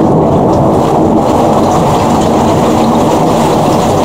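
Thunderstorm noise: a loud, steady, low rumbling wash of sound that does not rise or fall.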